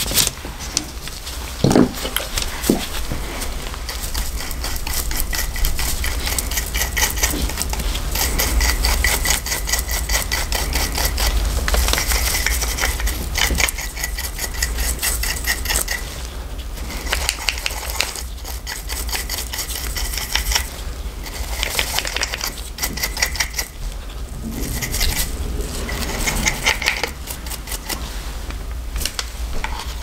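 A brush scrubbing caked dirt out of a vintage 1950s Wahl barber clipper's head, in rapid strokes with a few short pauses, and light knocks and clinks of the metal clipper parts being handled.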